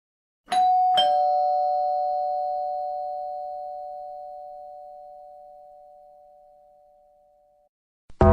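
Two-note ding-dong doorbell chime: a higher note, then a lower one half a second later, both ringing out and fading slowly over about seven seconds.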